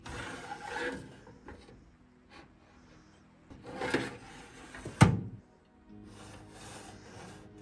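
Shallow steel drawers of a metal multi-drawer cabinet sliding open and shut, with one sharp metal clunk about five seconds in as a drawer is pushed closed. Soft background music underneath.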